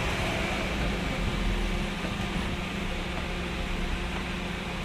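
Steady background noise with a low, even hum and no distinct handling clicks or knocks.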